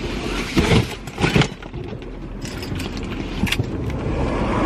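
Handling noises inside a car: rustling clothing and a lanyard being pulled over the head, with a few short knocks and a brief clatter about a second in and again later, over a steady low rumble of the car.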